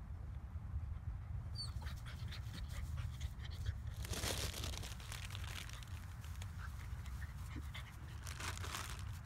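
A dog panting in short breathy bursts over a steady low rumble.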